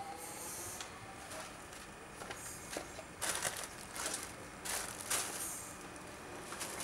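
Rustling and handling of paper and small objects on a metal bench: a few short bursts in the middle.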